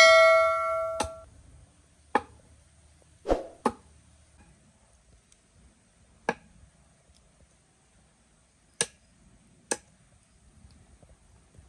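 A bell-like chime rings and fades away within the first second, followed by six sharp, light knocks and clicks spaced a second or more apart, like kitchenware being set down and handled.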